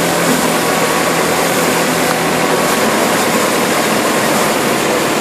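Wheat threshing machine running with a loud, steady drone as sheaves of wheat are fed into it by hand.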